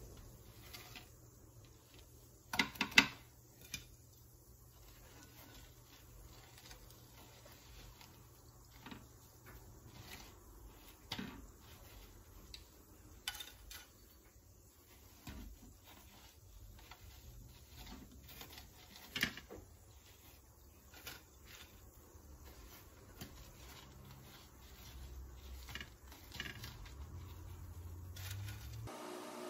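Bread dough deep-frying in a pot of oil, with faint irregular crackling and popping, and a few louder clinks of dishes, the loudest cluster about three seconds in.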